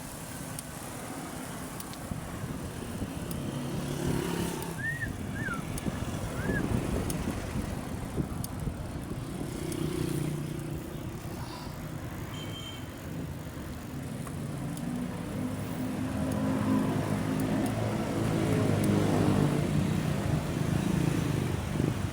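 Road traffic: motor vehicles running and passing, their rumble swelling and fading, with a few short high chirps about five seconds in.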